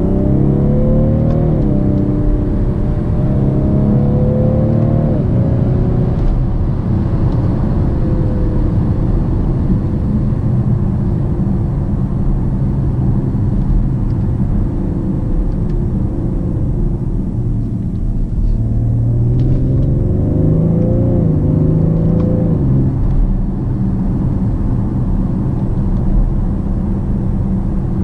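BMW 750d xDrive's quad-turbo 3.0-litre straight-six diesel heard from inside the cabin, accelerating with rising revs for the first few seconds, then cruising steadily over tyre and road noise. The revs rise again briefly around twenty seconds in, then ease off.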